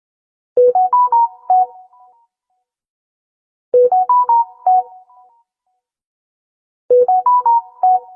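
Samsung Galaxy S smartphone notification tone: a short tune of several quick notes that starts low and rises, played three times about three seconds apart.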